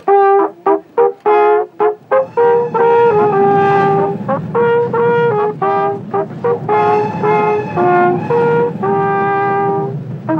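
A fanfare on valved hunting horns. It opens with quick, short separated notes, then moves into longer held notes in a simple melody.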